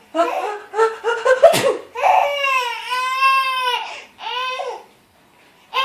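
A baby laughing hard in high-pitched bursts, with one long drawn-out laugh in the middle and a shorter one after it. A sharp, loud burst about one and a half seconds in cuts through just before the long laugh.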